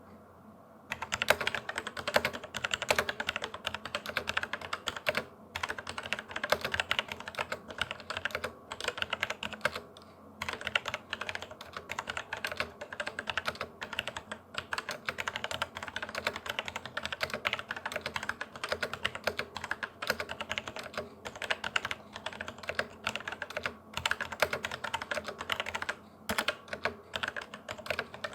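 Fast, continuous typing on a mechanical keyboard: a dense clatter of keystrokes starting about a second in, with a few brief pauses.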